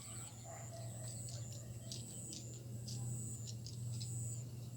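Small birds chirping and twittering, with many short, high-pitched calls overlapping, over a low steady hum.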